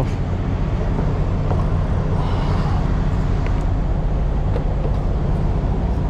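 A diesel truck engine idling steadily, a low even rumble, with a few faint clicks as jump-pack cable clamps are handled at the truck's battery box.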